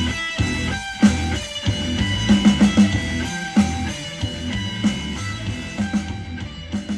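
Guitar-led music with drums and bass, played back through a portable Bluetooth speaker for a sound test; it gradually gets quieter near the end.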